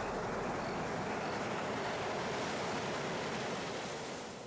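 Steady rushing noise, a surf-like ambience sound effect, with a few faint short high tones in the first half; it fades out near the end.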